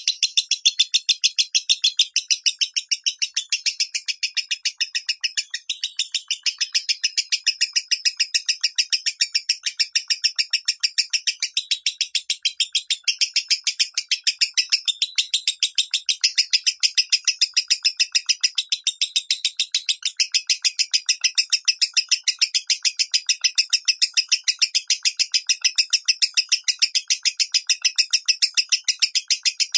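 Lovebird singing the high 'minor' voice: a long, unbroken run of rapid, high chirping notes, several a second, kept up without a pause.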